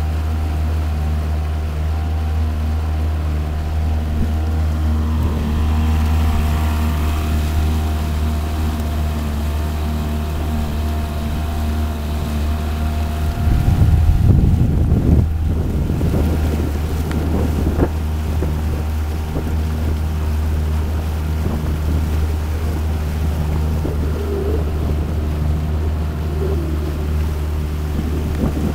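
Motorboat engine running at a steady cruising drone while under way. A gust of wind buffets the microphone about halfway through.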